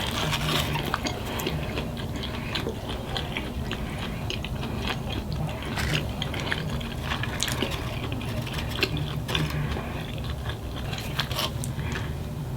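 Close-miked chewing and biting of a mouthful of California burrito: a steady run of wet mouth sounds with many small sharp clicks and crunches.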